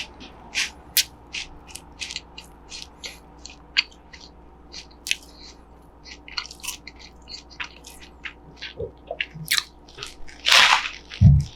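Crunchy corn puffs (Cheetos) in a burger bun being bitten and chewed: a run of irregular crisp crackles, with a louder crunch and a low thump near the end.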